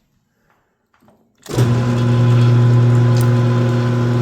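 Enco 13x40 gear-head lathe starting up about a second and a half in: its single-phase 1.5 hp motor and headstock gearing come on suddenly and run with a loud, steady hum.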